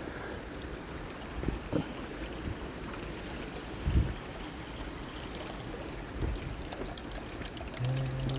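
River water trickling and pouring through small cascading pools, a steady rush, with a few dull thumps.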